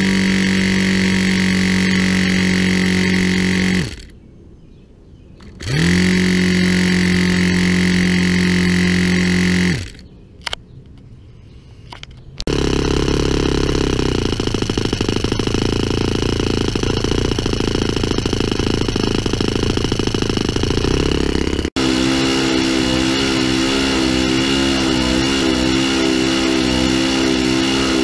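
A hand-held electric starter spins the O.S. FS-20 four-stroke glow engine over in two bursts of about four seconds each, each one winding up quickly to a steady whine. From about twelve seconds in, the engine runs on its own. After a sudden change near the twenty-two-second mark, it runs steadily at about 8,660 rpm.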